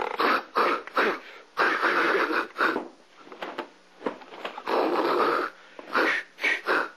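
A person huffing and hissing in breathy, unpitched bursts: several short puffs and a few held for about a second, with brief pauses between.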